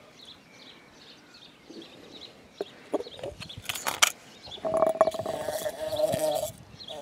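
Bumblebee buzzing loudly and steadily inside a drinking glass, starting a little past halfway and breaking off briefly near the end. Before it, a few knocks and clinks of the glass on concrete slabs.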